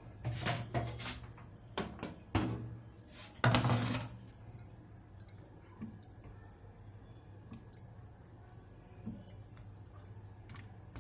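Clicks, knocks and clatter of dishes being handled at a microwave oven, with one longer scrape about three and a half seconds in, over a low hum that fades after about four seconds; faint light ticks follow.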